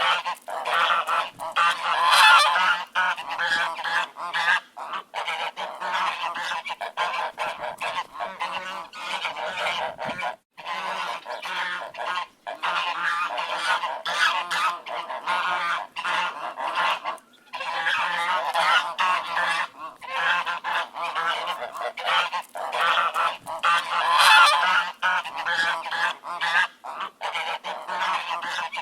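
A flock of ducks quacking, many birds calling over one another in a dense, continuous chorus with a few brief breaks.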